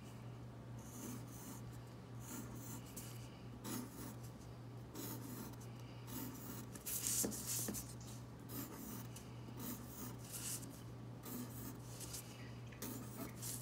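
Mechanical pencil scratching across drawing paper in quick, irregular repeated strokes, over a steady low hum.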